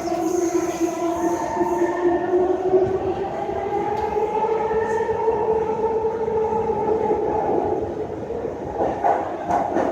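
SMRT C151 MRT train in motion, heard from inside the car: the traction motors whine in several tones over steady wheel and rail rumble, rising slightly in pitch and then fading away. A few knocks and clatters from the wheels near the end.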